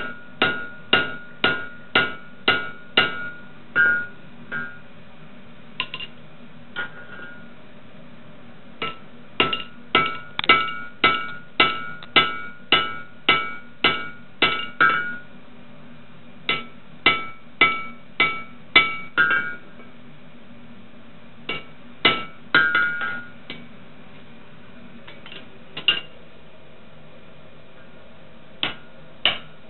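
Hand hammer striking a hot punch on red-hot square steel bar over an anvil, punching a forged hole. The blows come about two a second in runs of several, each with a short metallic ring, with pauses between the runs.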